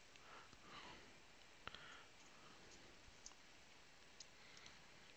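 Near silence with faint rustles and a few soft clicks of trading cards being handled and set down on a wooden table. The sharpest click comes a little under two seconds in.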